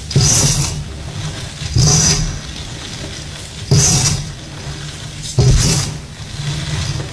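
Hands squeezing and crushing clumps of pressed powder with sprinkles in a metal bowl, giving four crunchy, crumbling squeezes about two seconds apart.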